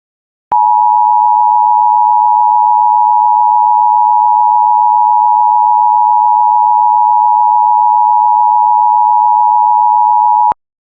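Emergency alert attention tone: one loud, steady electronic tone held for about ten seconds, starting and stopping abruptly. It signals that a warning message is about to be read.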